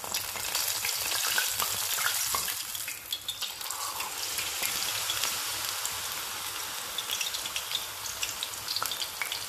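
Rice-flour-battered courgette flowers deep-frying in hot peanut oil: a steady sizzle full of small crackles, which picks up sharply right at the start.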